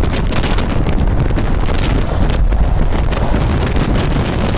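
Storm wind of about 70 knots buffeting a cell phone's microphone: loud, unbroken rushing noise, heaviest in the low rumble.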